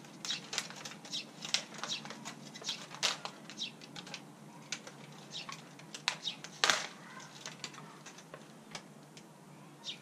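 Thin plastic nursery pot crackling and clicking irregularly as it is squeezed and handled to free a plant, with a sharper crack about two-thirds of the way in. A few short high chirps come and go.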